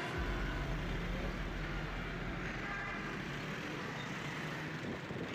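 City road traffic heard from inside a moving vehicle: steady engine and road noise with a heavy low rumble that eases off about three and a half seconds in.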